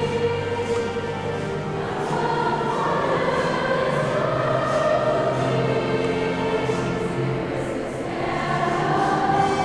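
A high school choir singing, holding long chords in several voice parts that change every second or two.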